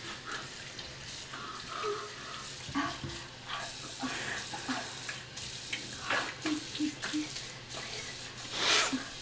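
Tap water running into a bathroom sink, with short splashes as it is scooped onto a face; one louder splash near the end.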